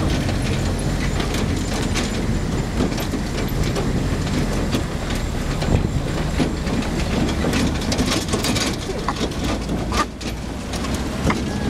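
Four-wheel-drive vehicle driving over a rough dirt track: a steady low engine and road rumble with constant rattling and knocking as it jolts over the bumps.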